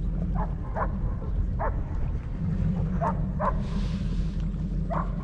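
A dog barking: about six short barks, three in the first two seconds, two near the middle and one near the end, over a steady low rumble.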